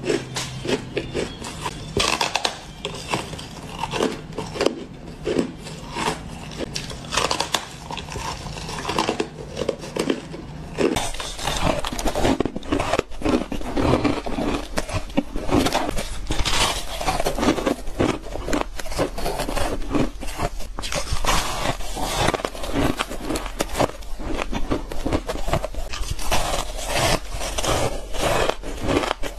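Close-miked crunching and crackling bites of frosty freezer ice, many quick sharp crunches one after another. About eleven seconds in, the crunching turns denser and lower as lumps of powdery blue crushed ice are grabbed and bitten.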